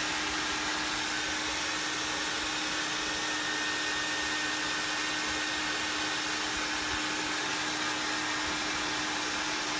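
Hair dryer running steadily: an even rush of blown air with a constant motor hum underneath.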